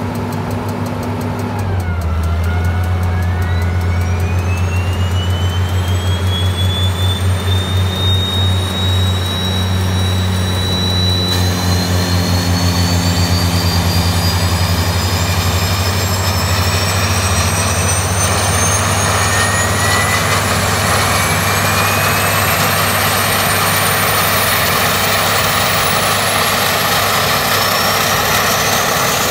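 A Piper Meridian's PT6A turboprop engine starting up. A whine rises steadily as the turbine spools up and keeps climbing as the propeller comes up to speed, over a steady low drone.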